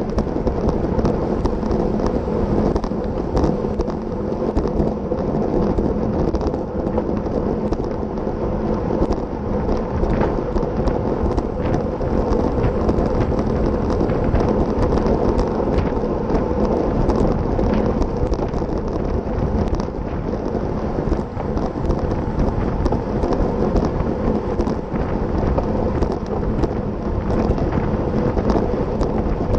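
Wind buffeting the microphone of a bicycle-mounted action camera at racing speed, a steady heavy rumble, with tyre-on-road noise and scattered small rattles and clicks from the bike.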